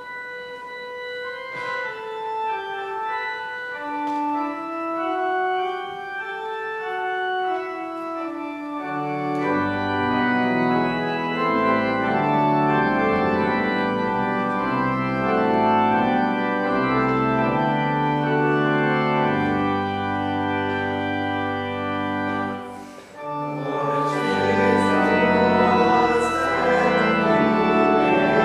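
Organ playing a slow melody in held, steady notes, first as a single line, then joined by full chords and low bass notes about a third of the way in. It breaks off briefly near the end and comes back fuller and louder.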